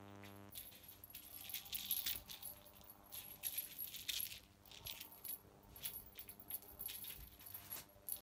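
Cat teaser wand toy shaken and dangled, rattling and jingling in irregular clusters of small sharp clicks, over a faint steady hum.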